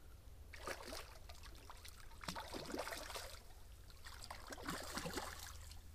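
A hooked fish thrashing and splashing at the water's surface, in three rough bouts of splashing.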